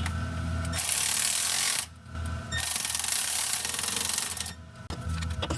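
Cordless power tool running exhaust manifold bolts down on a 5.7L HEMI in two runs, one of about a second and a longer one of about two seconds, before the bolts are torqued by hand.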